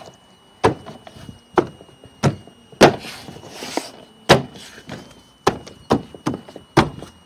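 About a dozen sharp knocks and snaps at irregular intervals: a car's plastic interior door trim being pressed and struck into place against the door.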